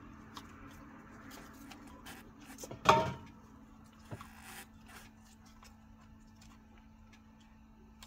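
Plastic clips of a PCV breather valve cover on an Audi TFSI engine being prised off with a pick: light scrapes and ticks, with one sharp snap about three seconds in and a smaller click a second later, over a steady low hum.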